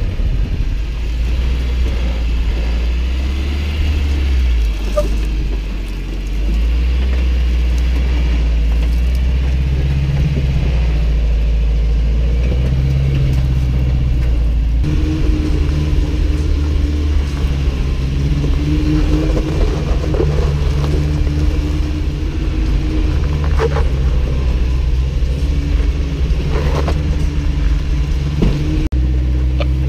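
Lifted Toyota pickup's engine running at low revs while rock crawling, its pitch rising and falling with the throttle. A few sharp knocks come through as the tyres and suspension work over the rocks.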